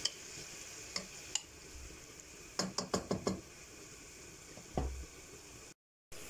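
Sliced onions and peppers sizzling faintly in oil in a metal pot, with a wooden spoon stirring and knocking against the pot several times, most often in a quick cluster about three seconds in.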